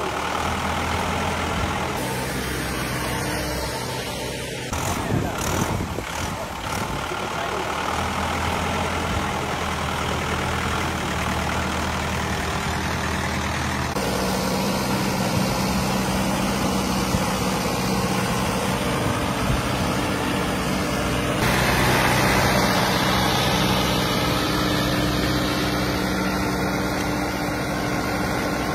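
Tractor's diesel engine running steadily under load as it churns through a flooded, muddy paddy field on cage wheels. The engine note shifts abruptly a few times.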